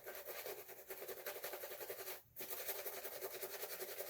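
Boar-bristle shaving brush swirling Williams shaving soap into lather: a fast continuous brushing rasp with a short pause about two seconds in. The lather is staying foamy and bubbly and will not cream up.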